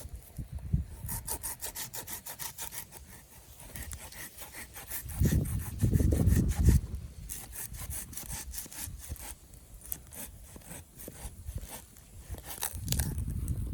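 Hand saw cutting through wood in quick, rhythmic strokes, with a pause about five seconds in filled by heavy low thumps, then more sawing.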